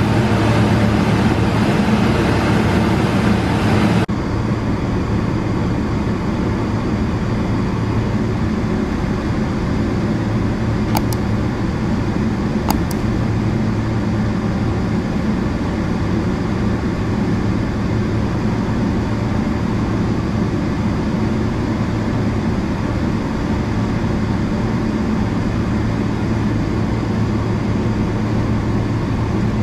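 Steady low hum inside a parked Boeing 777-300ER's cabin, the air conditioning and aircraft systems running. It is louder and hissier for the first four seconds, then settles lower and even, with two faint clicks a couple of seconds apart around the middle.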